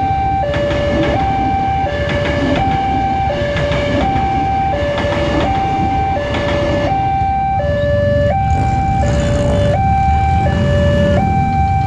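Railway level-crossing warning alarm sounding a two-tone hi-lo signal, the pitch switching roughly every 0.7 s, over the rumble of a passing electric commuter train.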